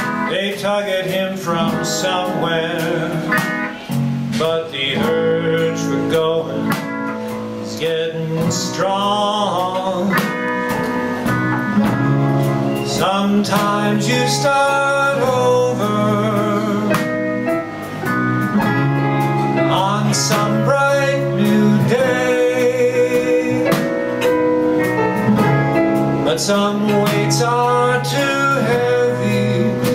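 A live band plays a song: strummed acoustic guitar, bass, keyboard and drums, with a lead line that bends in pitch.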